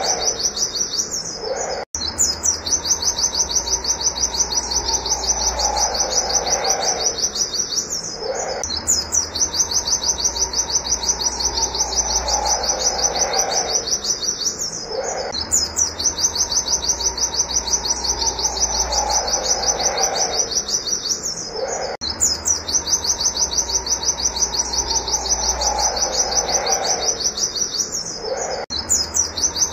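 White-eye (pleci) singing a rapid, high 'wit wit' series: very fast repeated notes in long runs of several seconds. Short breaks come about every six to seven seconds.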